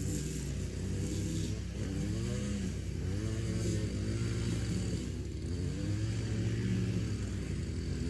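An engine running, its pitch rising and falling over and over as it revs up and drops back.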